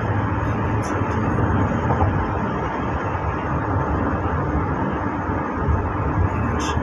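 Steady road and engine noise heard inside a car's cabin at highway speed: an even rushing rumble, heaviest in the low range.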